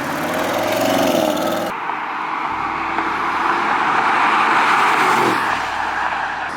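Stock 2021 Audi RS6's twin-turbo 4.0 V8 accelerating on its factory exhaust under heavy road and wind noise, the engine note subdued. The sound changes abruptly about 1.7 s in, and the engine note drops away near the end.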